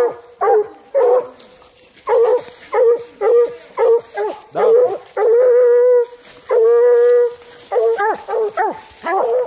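Coonhound barking, loud and close: a steady run of short barks, broken about halfway through by two long drawn-out bawls, then more short barks.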